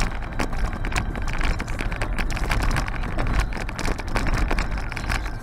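Car driving along a patched, uneven asphalt road, heard from inside the cabin: a steady low rumble of road and engine noise with frequent small knocks and rattles.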